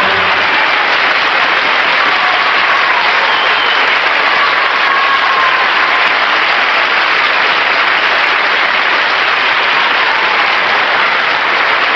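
Theatre audience applauding, a dense, steady clapping that holds at the same level throughout, as the ballet dancers take their bow.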